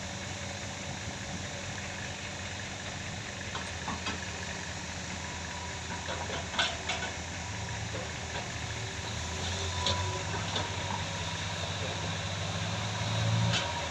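Diesel engines of a tracked hydraulic excavator and an Isuzu dump truck running steadily, with a few short clanks. From about halfway through, the engine note grows louder and deeper, peaking just before the end.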